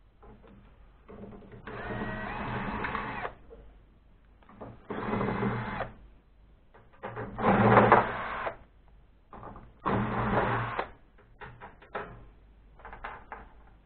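Power drill-driver running in four short bursts of about a second each, backing screws out of the microwave oven's casing, with a few light clicks near the end.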